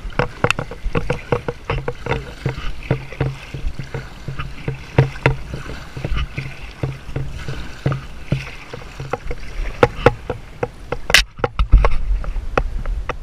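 Kayak being paddled on calm sea: paddle strokes splashing and dripping over a steady low rumble, with many sharp clicks and knocks throughout, the loudest a crack about eleven seconds in.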